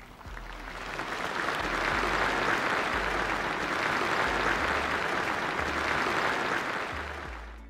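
A large audience applauding: a dense, even clatter of many hands that swells in over the first second or two, holds, and fades out near the end.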